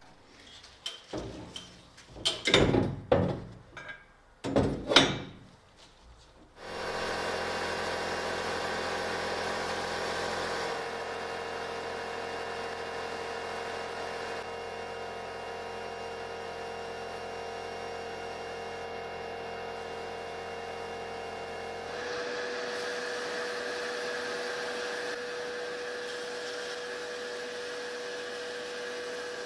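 Several loud clanks and scrapes of parts being handled, then a power tool starts about seven seconds in and runs steadily, its pitch shifting slightly twice.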